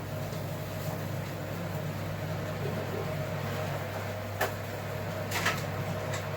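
A steady low machine hum, with a sharp click about four and a half seconds in and a short run of clicks about a second later.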